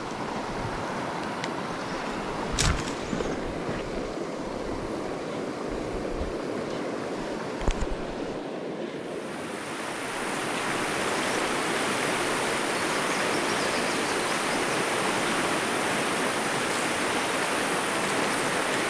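Steady rushing of a rocky mountain river's current, louder from about halfway through. Two brief knocks sound in the first half.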